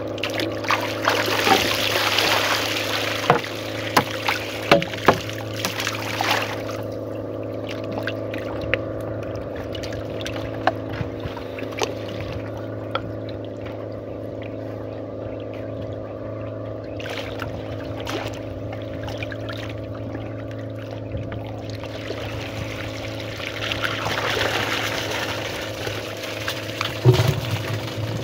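River water splashing and trickling as a line is hauled up by hand beside a wooden canoe, with small knocks and clicks, then water pouring off a rubber bucket trap as it is lifted out, over a steady motor hum.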